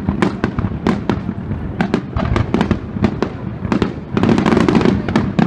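Fireworks display: aerial shells bursting with many sharp bangs and crackles, several a second. A denser, louder flurry comes about four seconds in.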